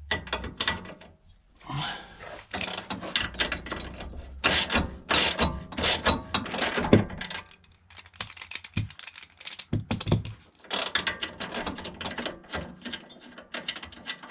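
Hand ratchet wrench clicking in quick runs with short pauses as an 18 mm bolt on the rear suspension of a BMW F20 is backed out, the bolt now loose enough to spin.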